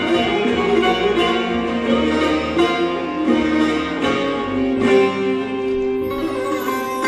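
Turkish folk instrumental passage played by a live ensemble: plucked strings lead over bowed strings, marked by drum strokes, settling into a long held note near the end.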